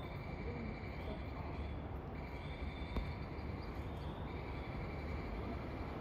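Outdoor ambience by a railway line: a steady low background rumble with faint high chirps and one short click about three seconds in, with no horn or train noise standing out.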